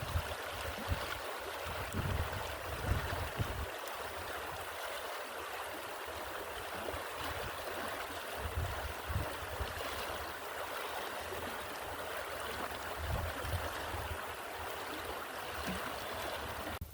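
Stream water running steadily, with irregular low gusts of wind buffeting the microphone now and then.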